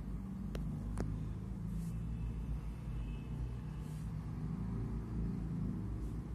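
Steady low background rumble, with two sharp clicks about half a second and a second in and faint scratching of a ballpoint pen writing on paper.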